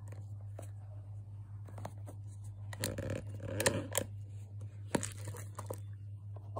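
Plastic screw-top lid being twisted off a plastic jar: the lid scrapes and clicks on the threads, most busily about three to four seconds in, with one sharp click near five seconds. A steady low hum runs underneath.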